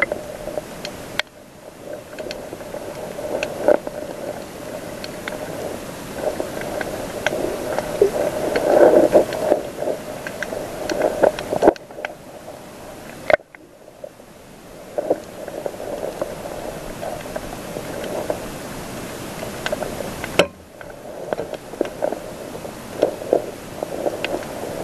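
Muffled underwater water noise picked up by a submerged camera: sloshing and churning water with many scattered small clicks and knocks. It swells loudest about eight to nine seconds in and drops away sharply for a moment around twelve seconds.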